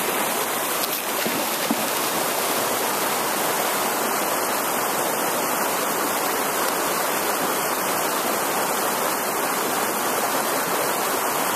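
Steady rushing of a creek's flowing water, an even hiss with no breaks.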